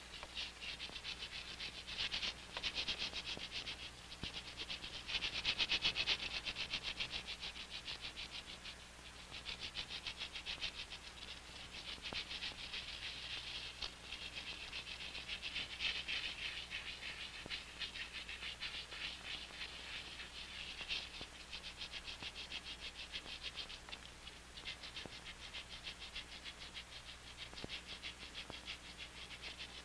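A chorus of small night animals trilling: a fast, high pulsing that swells and fades in waves, loudest about five or six seconds in. A faint low hum runs underneath.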